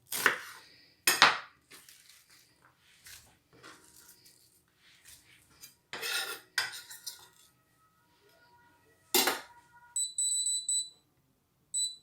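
Kitchen utensils and dishes handled on a counter: several sharp knocks and clatters, some leaving a brief ringing. About ten seconds in, a high electronic beeping starts, and it sounds again briefly near the end.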